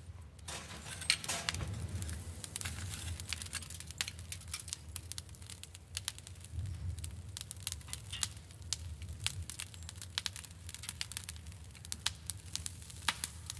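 Glowing charcoal crackling and popping under a grill grate: irregular sharp pops over a low, steady rumble of the fire.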